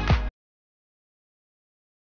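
Background electronic dance music with a steady kick-drum beat, cut off abruptly about a third of a second in; the rest is dead digital silence.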